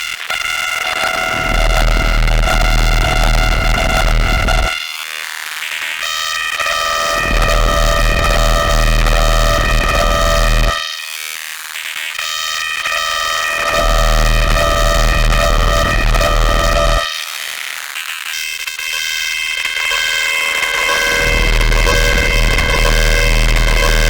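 Synthesizer chords played through the Snowstorm white-noise distortion pedal, heavily distorted with blown-out bass and a noisy hiss. Each chord is held for about six seconds, and there is a short dip between chords.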